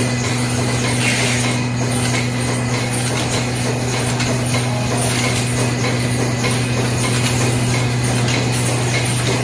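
High-speed tube cartoning machine running: a steady low hum under a continuous mechanical clatter from its conveyor and carton-handling mechanisms.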